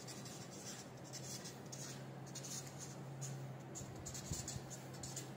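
Marker pen writing on a stack of paper: a run of short, irregular scratchy strokes over a low steady hum, with a soft bump about four seconds in.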